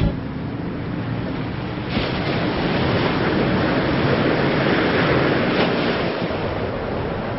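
Outdoor wind and water noise, a steady wash that builds up about two seconds in and eases slightly near the end.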